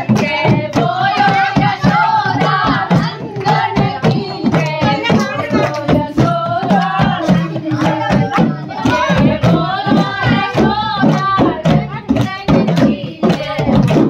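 Group singing of a Kumaoni Holi song, accompanied by steady, rhythmic drumming on a dholak and a hand drum, with hand clapping on the beat.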